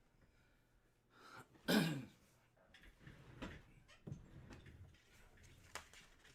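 A man clears his throat once, about two seconds in, a short rasp that drops in pitch. It is followed by a few faint clicks and rustles.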